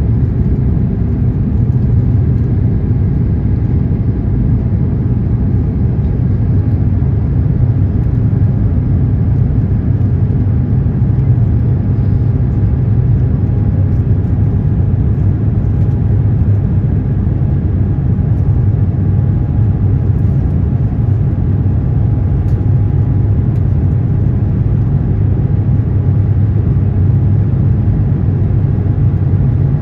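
Steady cabin rumble of an Airbus A350-900 in flight, the noise of its Rolls-Royce Trent XWB engines and the airflow, heard from inside the cabin, with a faint steady hum above it.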